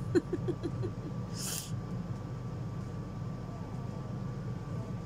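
A woman's short laugh, a quick run of about six falling 'ha' pulses, then a brief high hiss about a second and a half in, over a steady low hum.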